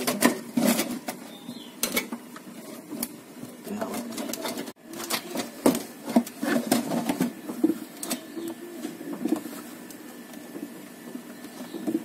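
Plastic refrigerator fan cover panel being pushed and snapped back into place by hand: a string of sharp clicks and knocks.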